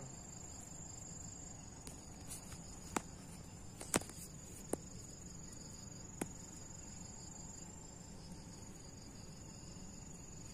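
Steady high-pitched insect chirring, with a few sharp clicks between about three and six seconds in.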